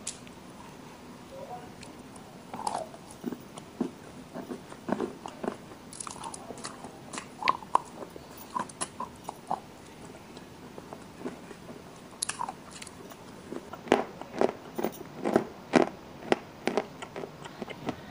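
Close-up chewing and biting of red clay paste mixed with slate pencil crumbles: irregular crisp crunches, coming fastest and loudest in a run near the end.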